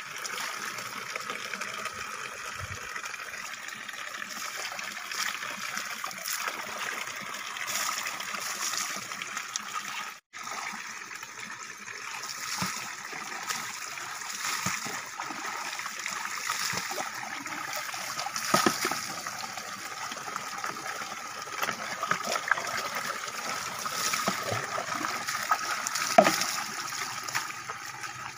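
Water running steadily from a spout pipe into a pool, with splashes and spatters as a plastic dipper scoops water and it is poured over a person's body. The sound drops out for an instant about a third of the way in.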